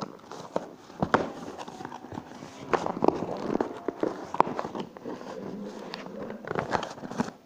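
Close handling noise: irregular clicks, knocks and rubbing as fingers work over the recording phone and objects on a wooden table, with the sharpest knocks about a second in and around three and four and a half seconds in.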